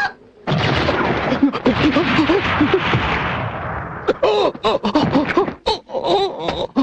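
Voice-acted laughter from a cartoon soundtrack: several men laughing together, then an old man laughing in short, broken laughs that stop and start. The laughter is forced, a show of non-resistance under threat.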